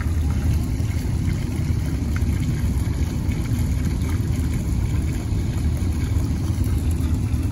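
Steady low rumble of wind buffeting the microphone, with no other distinct sound standing out.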